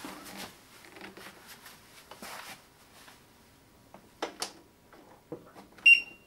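Rustling and knocks as a Ninebot One S2 electric unicycle is picked up and stood upright on a wooden floor, then a single short, high electronic beep near the end.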